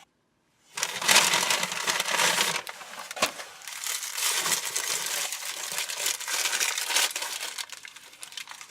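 A food wrapper crinkling and crumpling as it is handled close to the microphone. It starts under a second in and keeps going in irregular crackles.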